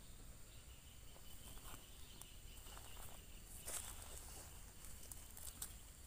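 Faint rustling and a few soft clicks in dry grass as a caught dove is handled and set down, the loudest rustle a little past halfway, over a steady high insect buzz.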